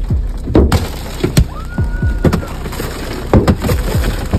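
Baseball-sized hailstones hitting a car's body and windows, heard from inside the car as rapid, irregular hard hits with glass breaking. A high tone is held for about a second near the middle.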